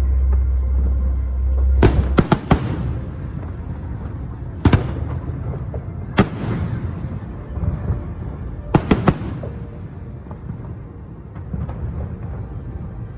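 Aerial fireworks shells bursting in a display: clusters of sharp bangs, about eight in all, with booming echoes over a low rumble. The rumble is heaviest for the first two seconds or so.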